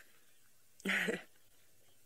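A single short growl, lasting under half a second, from a lion cub during rough play-fighting, about a second in.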